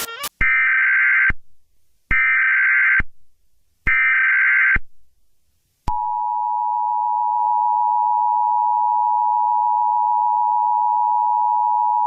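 Emergency Alert System alert tones. Three short bursts of buzzing SAME header data tones come about a second apart. About six seconds in, the steady two-tone EAS attention signal starts and holds.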